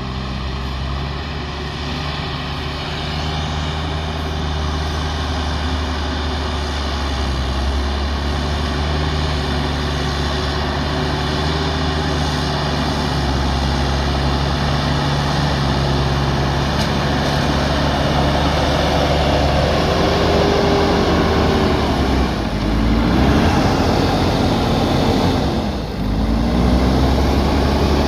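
Diesel engine of a JCB backhoe loader running steadily under load. Near the end its revs drop and climb again a couple of times.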